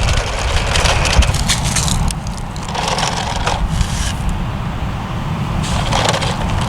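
Gravel crunching and scraping in three short spells as it is scooped and poured with plastic Bruder toy trucks, over a steady rumble of wind on the microphone.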